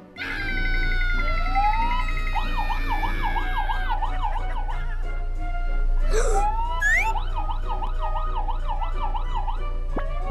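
Cartoon police siren sound effect, its pitch sweeping rapidly up and down about three times a second, over background music, with a few short rising whistle-like glides.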